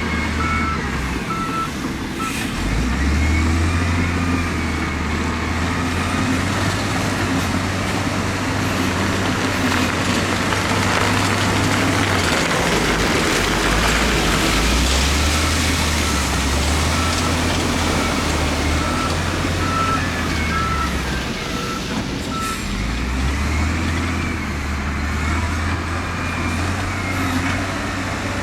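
Heavy diesel construction machinery working, the engine note rising and falling under changing load, with a reversing alarm beeping in a short series near the start and again about two-thirds of the way through.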